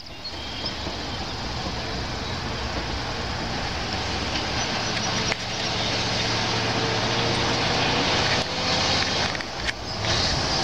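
1975 Ford L-series (Louisville) fire truck's engine running as the truck drives toward the listener, growing steadily louder as it approaches.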